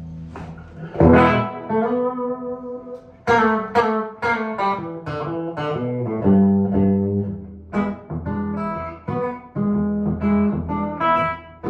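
A 1955 Gibson ES-295 hollowbody electric guitar with P-90 pickups being played. A chord is struck about a second in and left to ring, then comes a run of picked single notes and short chord figures.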